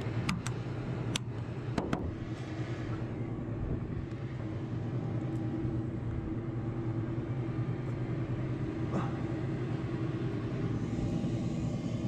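A few sharp clicks in the first two seconds as a small hinged access door on an engine fan cowl is pressed shut and latched. A steady low machine hum with constant tones runs underneath throughout.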